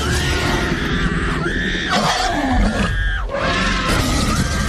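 Loud screaming in several long, held bursts over a deep growling roar and music, starting suddenly with a crash.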